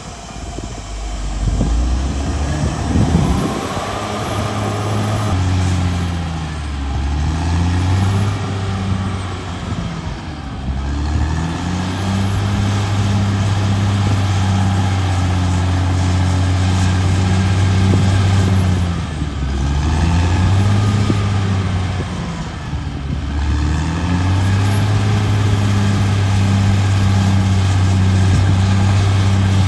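Caterpillar D6R XL bulldozer's diesel engine running hard. Its pitch sags and recovers several times as the machine takes and sheds load.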